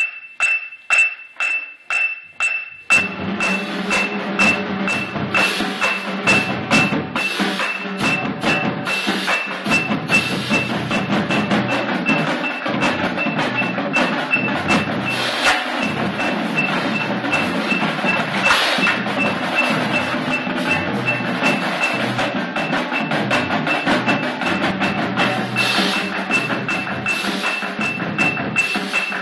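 A steady metronome beep, about two a second, sounds alone at first. About three seconds in, a marching drumline with snare, tenor and bass drums and a mallet-percussion front ensemble starts playing together in time over the click, which keeps going throughout.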